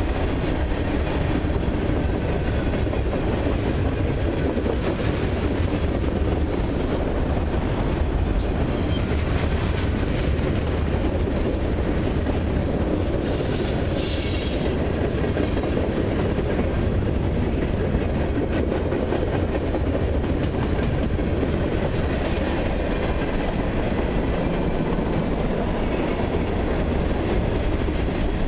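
Freight cars of a long mixed freight train rolling past: a steady rumble and clatter of steel wheels on the rails. A brief high-pitched squeal comes about halfway through.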